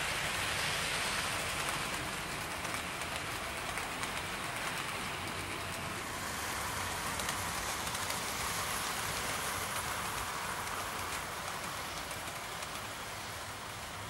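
OO gauge model trains, Gresley A4 locomotives hauling coaches, running on the layout: a steady rolling rush of wheels on rails.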